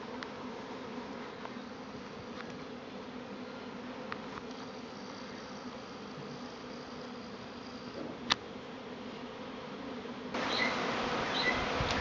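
Honeybee swarm in flight: a steady hum of many bees. A single sharp click about eight seconds in; near the end the sound turns louder and fuller, with short repeated chirps of a rosella calling.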